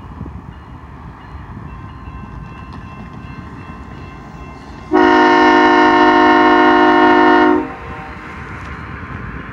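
Freight diesel locomotive's air horn sounding one long blast, a chord of several steady pitches, starting about halfway through and cutting off after about two and a half seconds. A steady low rumble runs underneath.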